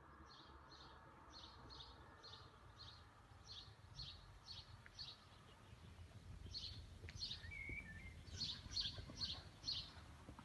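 A songbird chirping over and over, short high chirps a few times a second, with a briefer lower call near the middle, over a faint low outdoor rumble.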